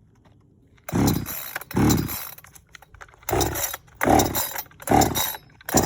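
Cheap gas chainsaw being pull-started: about six quick yanks of the recoil starter cord, each a short rasping stroke with a pause between. The engine does not catch.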